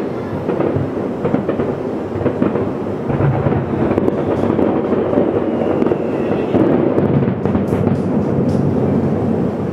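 Distant fireworks finale: a dense barrage of shell bursts merging into a continuous rumble, with many sharp reports and crackling on top.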